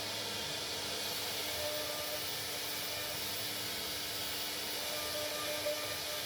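CNC router spindle running as it cuts, a steady hissing noise with a low hum under it and a very high thin whine that rises about a second in and then holds.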